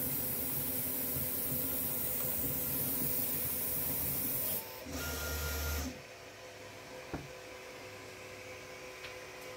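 Delta 3D printer with a Flex3Drive Gen 4 extruder running as it prints the final layers: a steady whine of stepper motors and fans, with a brief louder, deeper move about five seconds in. About six seconds in the motor noise stops, leaving a quieter steady fan hum with a single click a second later.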